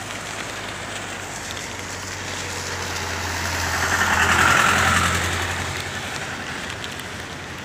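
A motor vehicle passing close by, its engine and tyre noise swelling to a peak about four seconds in and then fading away over a steady low hum.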